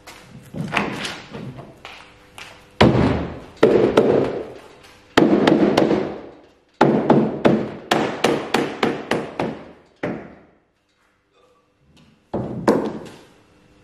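Runs of rapid knocks and taps on a fibreglass boat hull in its GRP mould, several strikes a second with the shell ringing after them, as the moulding is worked free of the mould. The knocking stops for about two seconds near the end, then one last short run.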